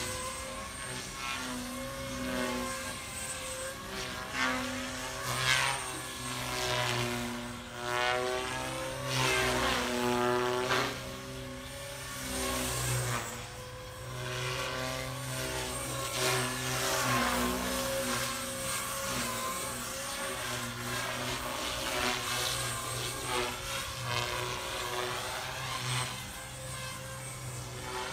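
JR Forza 450 radio-controlled helicopter flying, its rotor and motor drone rising and falling in pitch and loudness as it swoops back and forth through repeated passes.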